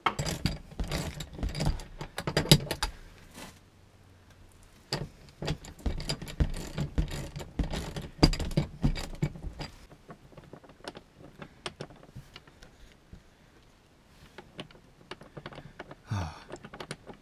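Metal tools clattering in a toolbox drawer, then a socket ratchet clicking in runs as car seat-mounting bolts are loosened. The clicking dies down after about ten seconds.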